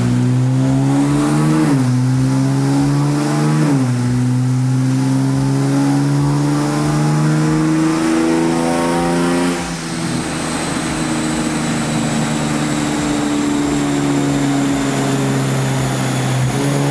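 Nissan Z's 3.0-litre twin-turbo V6 at full throttle on a chassis dyno. The revs climb, drop twice at upshifts about 2 and 4 seconds in, then climb steadily for about six seconds. The throttle then closes and the revs fall away as the car coasts down, rising again near the end.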